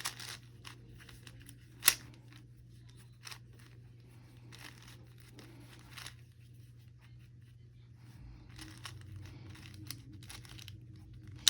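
Plastic Rubik's cube being twisted by hand: scattered soft clicks and scrapes as the layers turn, with one sharper click about two seconds in, over a low steady hum.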